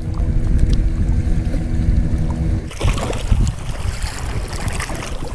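A small fishing boat's motor running steadily. About halfway through, the motor sound cuts off suddenly and wind buffeting the microphone takes over.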